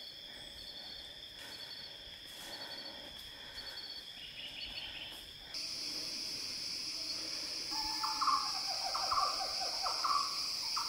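Tropical rainforest ambience: insects keep up a steady high-pitched whine with short chirping trills, which jumps louder about halfway through, and from about eight seconds in an animal gives a series of short calls, a little more than one a second.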